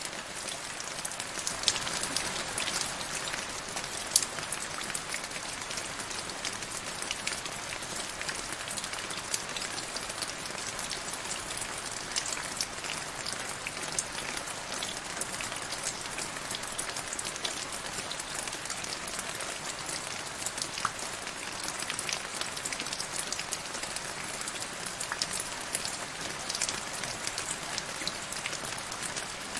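Rain falling steadily into a shallow puddle over grass: a continuous hiss of rainfall with many individual drops ticking and splashing on the water surface.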